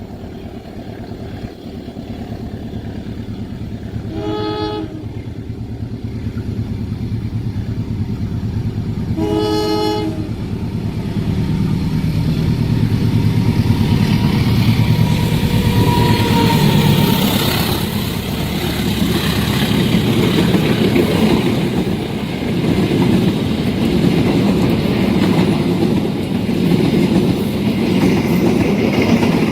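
Train sounding its horn twice in short blasts, about four and nine seconds in, then passing with its wheels clattering over the rails, the rumble growing louder as it goes by.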